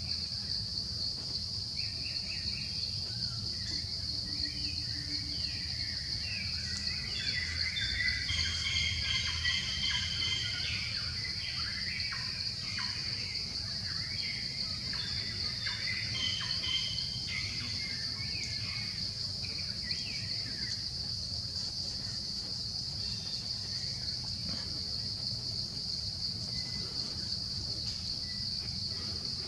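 A steady, high-pitched drone of insects runs throughout, with a spell of short chirping calls in the middle, over a low background rumble.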